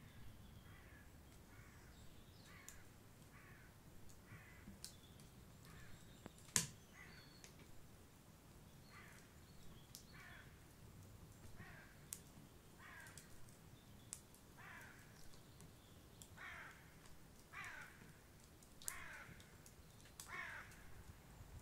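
A bird giving short calls that fall in pitch, over and over at a bit more than one a second, growing louder in the second half. A few sharp clicks come in between, the loudest about six and a half seconds in.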